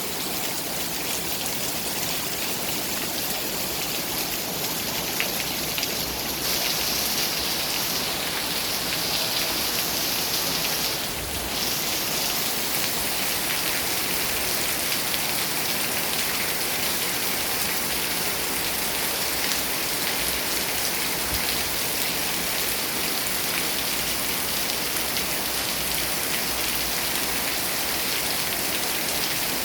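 Heavy tropical rain pouring steadily onto paved ground, a dense even hiss of drops that grows a little louder about six seconds in.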